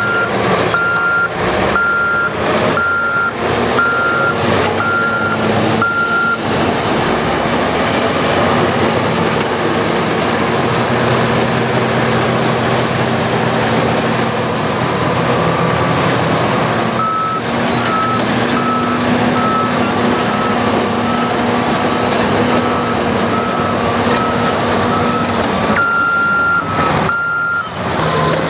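Heavy diesel construction machinery running steadily while a backup alarm beeps for the first several seconds and again briefly near the end. A second backup alarm at a slightly lower pitch beeps through a stretch in the middle.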